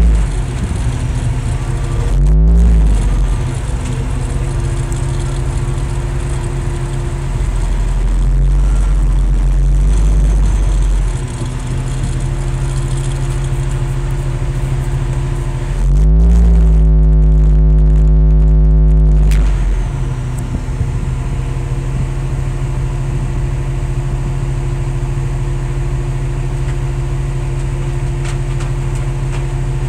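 Heavy diesel engines running under load as a crawler dozer tows a loaded 6x6 concrete mixer truck through mud on a tow line. The engine note holds steady, rising and getting louder for a few seconds just past the middle.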